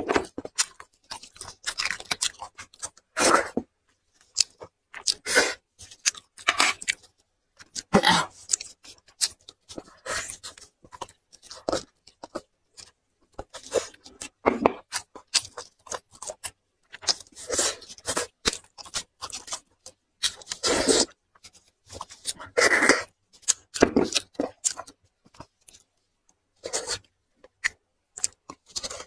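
Close-miked chewing and tearing of meat and soft marrow from braised bones, in short irregular bursts with brief pauses between.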